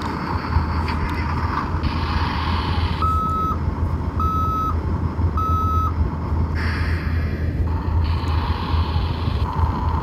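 Sound effects from a CAT toy dump truck's small speaker: a recorded diesel-truck engine sound, then three reversing beeps a little over a second apart a few seconds in, then the engine sound again. A low wind rumble on the microphone runs underneath.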